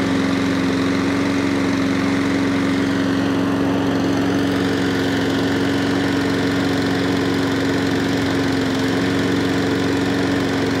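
Honda 160cc overhead-cam single-cylinder engine on a walk-behind rotary lawn mower, running steadily and evenly on its first start-up after a full carburettor strip and service. It goes a treat.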